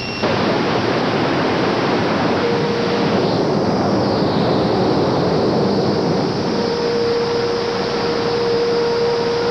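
Steady industrial noise of steel mill machinery at work, an even, unbroken rush, with a faint steady hum joining a few seconds in.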